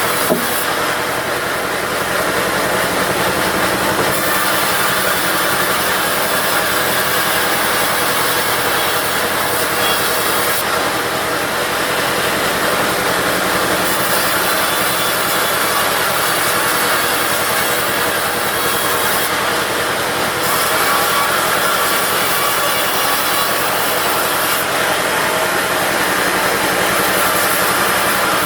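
Diesel-driven bandsaw cutting teak: the blade's rasping hiss over the engine running steadily. The high hiss eases off for a few seconds several times.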